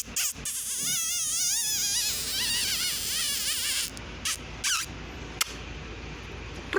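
A high-pitched warbling sound effect whose pitch wobbles up and down about five times a second for about three seconds, followed by a few sharp clicks.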